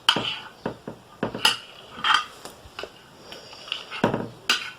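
A utensil clinking and scraping against a bowl while slime glue is mixed: a handful of scattered short knocks, with a cluster about four seconds in.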